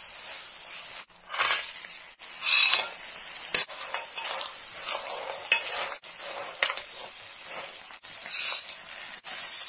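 Spatula stirring and scraping chilies and spice paste around a nonstick wok while the oil sizzles, with several louder scraping strokes and one sharp knock of the spatula on the pan.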